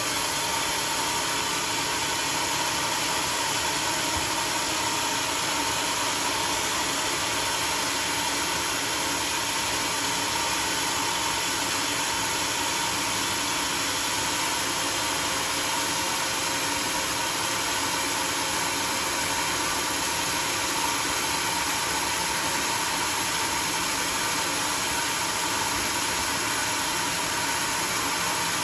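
Homemade sawmill's engine and blade running steadily, unloaded, without any change in pitch or level.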